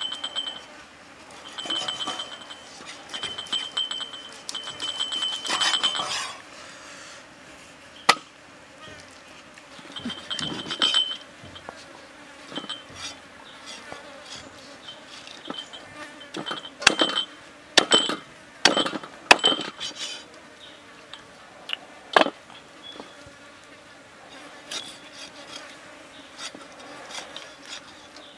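Meat cleaver chopping through pork ribs on a wooden stump chopping block: scattered sharp chops, several close together in the middle of the stretch. Insects buzz steadily underneath, pulsing in the first few seconds.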